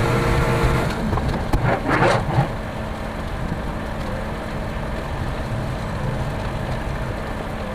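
Concrete mixer truck's diesel engine running, louder in the first second and then settling to a steady idle, with a short hiss about two seconds in.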